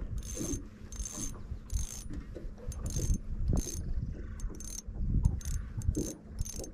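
Spinning fishing reel ratcheting in about ten short bursts at uneven intervals as line is worked on it, with knocks from handling the rod.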